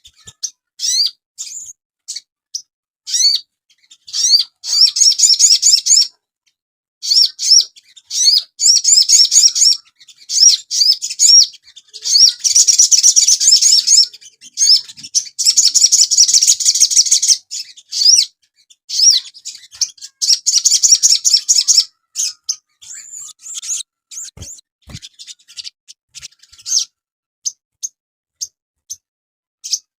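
A sogon songbird singing in high-pitched bursts of quick, repeated rising notes. The song runs densest and fullest through the middle and thins to scattered chirps near the end.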